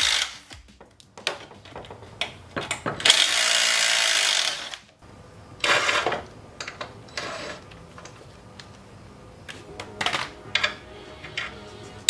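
Handheld power tool run in bursts on the bolts of a steel bumper's mounting brackets: a long burst of about a second and a half some three seconds in, and a shorter one about six seconds in. Between and after, light clinks of steel brackets and nuts being handled.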